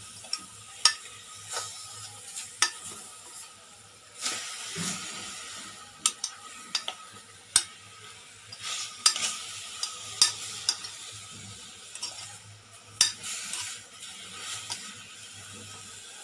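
Chunks of veal sizzling as they brown in a hot stainless-steel pot over a high gas flame, while a spoon stirs them, with sharp knocks of the spoon against the pot now and then.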